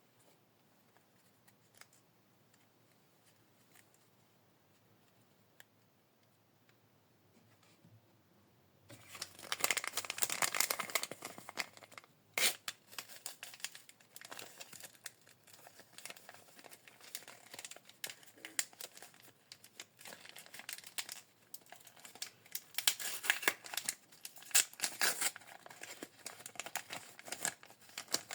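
A few faint clicks, then from about nine seconds in, small plastic packaging crinkling and tearing in uneven bursts as a mini collectible is unwrapped by hand, with a sharp snap about three seconds after the crinkling starts.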